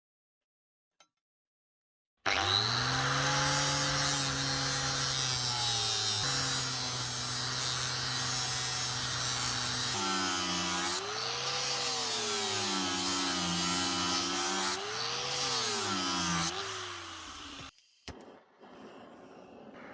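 Electric power tool switched on about two seconds in and running loudly with a steady motor hum, its pitch sagging and recovering twice as it is loaded, then switched off near the end.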